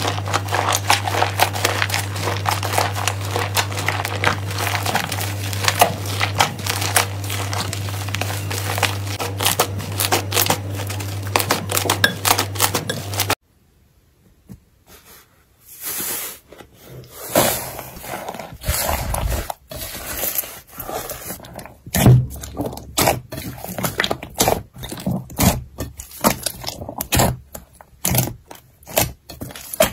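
Hands kneading and stretching thick slime, a dense run of crackly tearing and crinkling sounds over a low steady hum. About a third of the way in this stops suddenly. After a short lull come sparser sticky pops and crackles as fingers press into slime.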